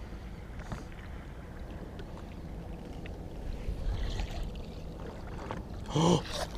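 Steady low rumble of wind and lake water around a small fishing boat, with a few faint clicks as a lure is reeled in. Near the end, a man lets out one short, loud exclamation.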